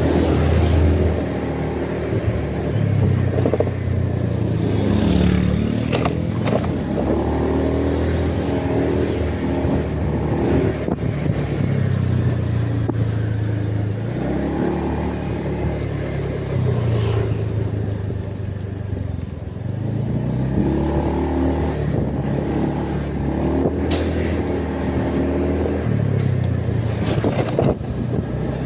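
A motor vehicle's engine running on the road, its pitch rising and falling again every few seconds as it speeds up and slows down.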